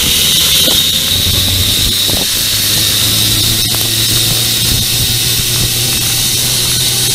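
Zipline trolley pulleys running along a steel cable at speed: a steady high whine with a low hum underneath, over a rushing hiss of air.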